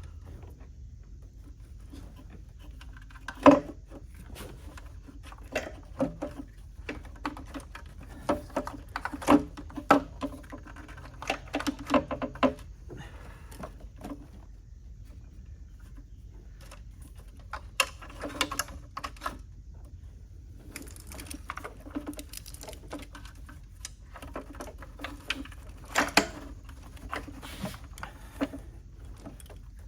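Irregular clicks, knocks and scrapes of a plastic intake manifold being wiggled into place on a Ford 4.6 L two-valve V8, bumping against the fuel rail and wiring harness. The sound comes in bursts, with one sharp knock a few seconds in.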